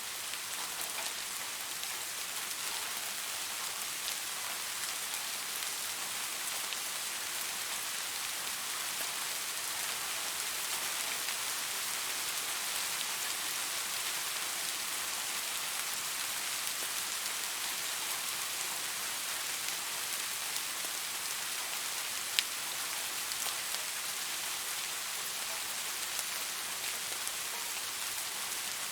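Steady rain falling on leaves, a dense even patter of drops with one sharper, louder drop tap about twenty-two seconds in.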